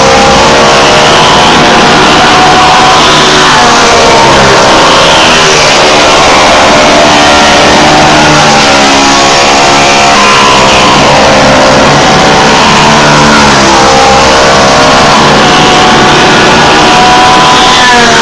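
Several dirt-track race car engines at full throttle around the oval, loud and constant. Their pitches overlap and rise and fall every second or two as the cars rev down the straights and lift for the turns.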